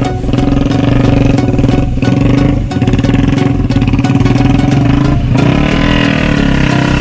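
Three-wheeled motorcycle with a Yamaha MX engine running, loud and steady, easing off briefly a few times.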